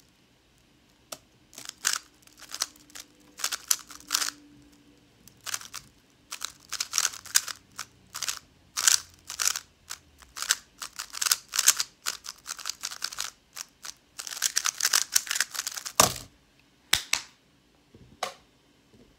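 A GTS2M magnetic stickerless 3x3 speedcube being turned fast during a timed solve: rapid runs of clacking layer turns with short pauses between them. At about sixteen seconds the turning stops with one sharp knock, then a few single clicks follow.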